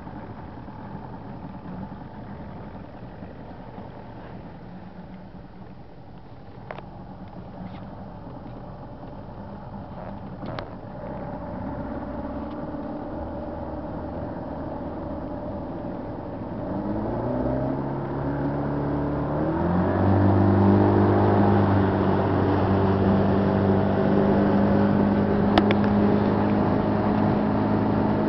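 Small rental boat's outboard motor running low at first, then throttled up about two-thirds of the way in, its pitch rising over a few seconds before it settles into a louder, steady run.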